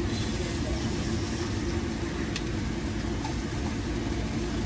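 Steady low mechanical rumble and hum, like a motor or fan running, with one short click a little over two seconds in.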